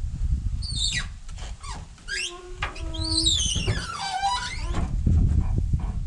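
Squeaks and squeals from the John Deere skid steer's cab parts as they are worked by hand. There are several sharp squeaks and one long squeal that slides down in pitch, over a low rumble.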